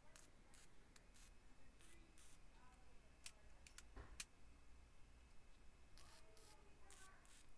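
Very faint sound: MIG welding on steel plate, a few short crackling bursts of arc near the end, which are tack welds. Faint clicks come earlier.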